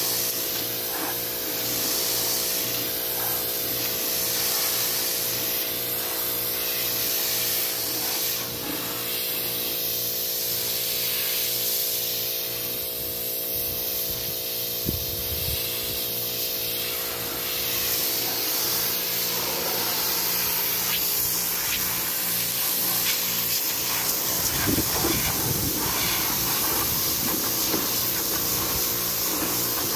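Pressure washer jet spraying a boat's swim platform: a steady hiss of spray over the constant hum of the washer running. For a few seconds near the end the spray turns rougher and deeper.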